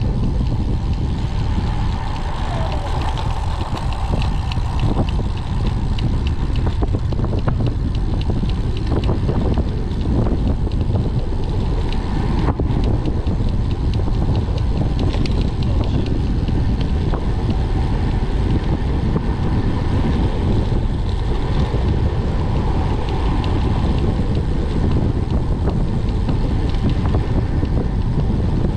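Steady wind rushing over the microphone of a rider on a road bike, a constant low rumble.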